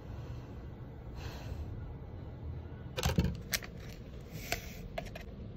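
A foil coffee sachet crinkling and crackling as it is torn open, a few sharp crackles with a thump about three seconds in and more a little later, over a low steady hum.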